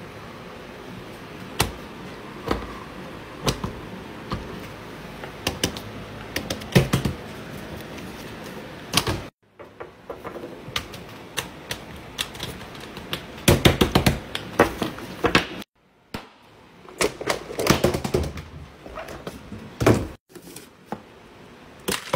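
Irregular clicks, taps and knocks of fidget toys, silicone pop-its and a small metal fidget, being handled and set down on a table, with a faint steady hiss beneath. The sound cuts out abruptly three times.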